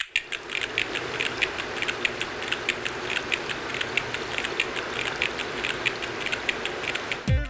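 A steady rushing noise with fast, even mechanical ticking, several ticks a second. A musical beat with deep drum hits comes in at the very end.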